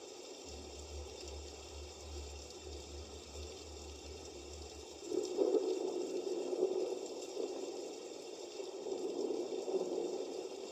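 A recorded water nature sound, bubbling, running water, played through a small alarm clock's speaker. It gets louder about five seconds in.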